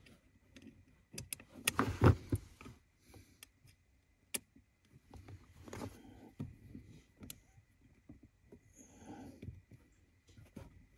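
Small clicks, taps and rustling of a hand and a small tool working the fasteners of an aftermarket spacer on a car's gas pedal while it is being tightened down, with a louder rustling knock about two seconds in and a sharp click a little past four seconds.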